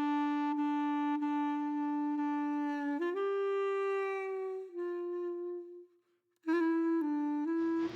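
Background music: a melody of long held notes, first one note for about three seconds, then higher notes sliding slightly down. There is a brief break about six seconds in, and a fuller, noisier accompaniment comes in near the end.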